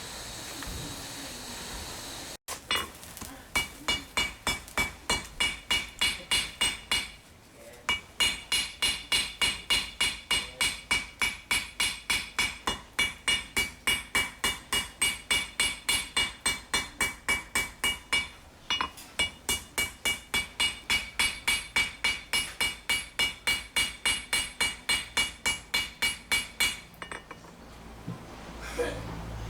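Hand hammer forging pattern-welded steel on an anvil: sharp ringing blows, about three a second, in long runs with two short pauses. A steady hiss is heard before the hammering starts and again near the end.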